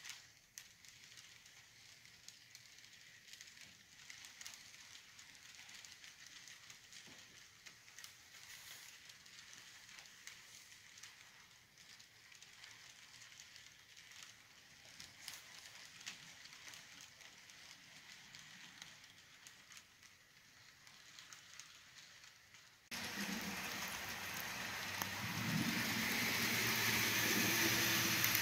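Model passenger train cars rolling past on the layout track, a faint light clicking and rattling of wheels over the rails. About 23 seconds in, the sound jumps much louder to a steady train running noise with a low rumble underneath.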